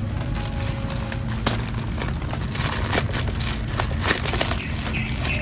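Scissors cutting through a plastic courier mailer bag, then the plastic crinkling and tearing as it is pulled open by hand, with scattered sharp crackles.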